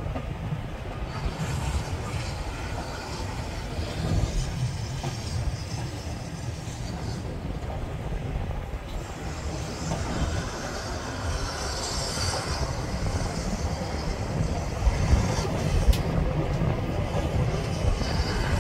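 Steam-hauled heritage passenger train running, heard from an open carriage window: a steady rumble of the coaches' wheels on the track, with a brighter high-pitched hiss or squeal about two-thirds of the way in as the train rounds a curve.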